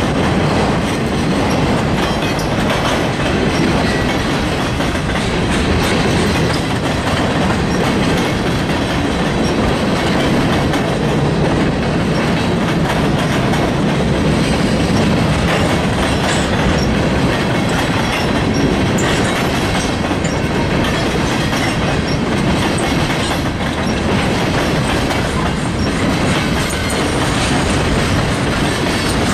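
Freight train cars rolling past at close range, a steady loud rumble with the clickety-clack of wheels over rail joints.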